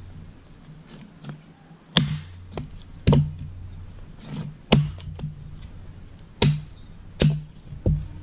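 Axe splitting firewood: about six sharp chopping strikes at uneven intervals, the first about two seconds in.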